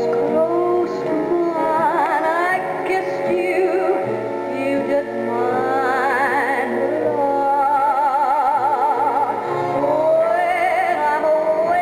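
A 1942 popular song: a woman sings long notes with a wide vibrato over an orchestral accompaniment, played on a 1946 Emerson tube radio fed from a home AM transmitter.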